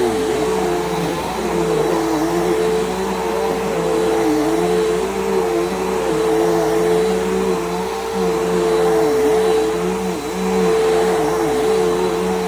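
Bissell PowerGroom bagless upright vacuum running on carpet: a steady motor whine with lower hums that waver up and down.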